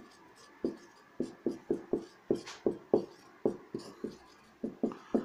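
Marker pen writing on a whiteboard: a quick, uneven run of about fifteen short strokes, one for each line of the letters.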